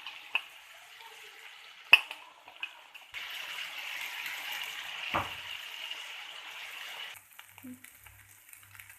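Potatoes frying in a pan, a steady sizzle with the sharp clicks of a utensil against the pan, one clack much louder than the rest. A few seconds in the sizzle gets louder for about four seconds, then drops away suddenly.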